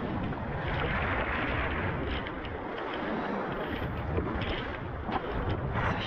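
Shallow mountain stream rushing and splashing over stones around wading legs, with wind buffeting the microphone. A few sharp knocks near the end.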